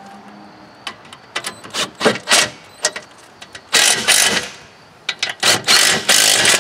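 Cordless drill running in several short bursts as it drives the engine-mounting bolts up through a lawn mower deck, tightening them down.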